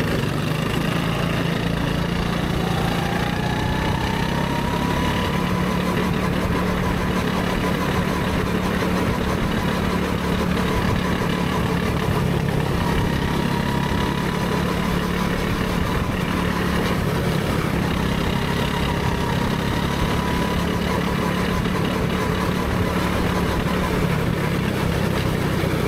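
Go-kart running steadily on track, heard from the driver's seat: a constant drone with a thin whine that rises a little a few seconds in and then holds.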